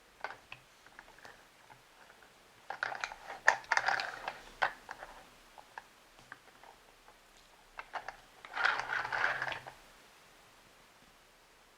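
Crinkling, crackling handling noise in two bursts, the first about three seconds in and the second near nine seconds, made up of many small clicks and rustles.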